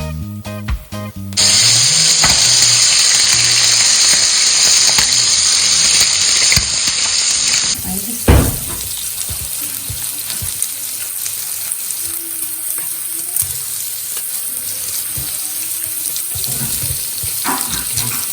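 Meat sizzling on a hot non-stick electric grill plate: loud for about six seconds after a short bit of music, then a single knock and a steadier, quieter sizzle.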